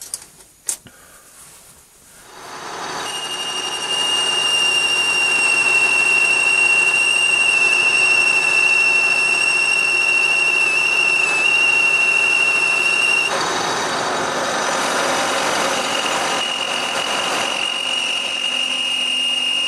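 Metal lathe turning a steel shaft: after a couple of clicks it spins up over about two seconds into a loud, steady run with a high-pitched whine. The whine drops away for a few seconds past the middle while a rougher cutting noise swells, then comes back.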